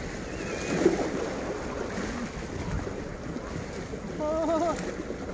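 Wind rumbling steadily on the microphone, with a brief knock about a second in and a short stretch of a voice in the background near the end.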